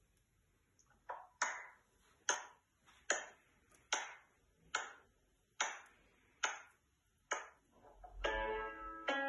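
A steady metronome-style count-in: sharp clicks about one every 0.85 seconds, nine in all. About eight seconds in, the accompaniment enters with sustained chords.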